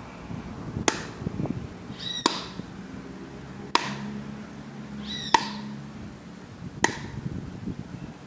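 A closed palm slapping a greased car wheel hub bearing assembly four times, about one and a half seconds apart, pressing the grease in towards the rollers. Two short high squeaks come between the slaps.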